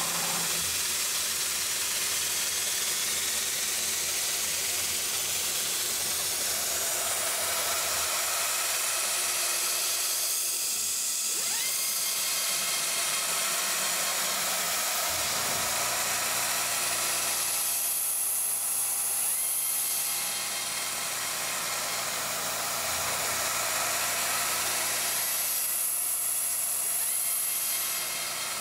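CNC mill rigid-tapping M5 threads in aluminium plate under the steady loud hiss of a coolant nozzle blowing at the tap, with faint rising whines from the VFD-driven spindle motor.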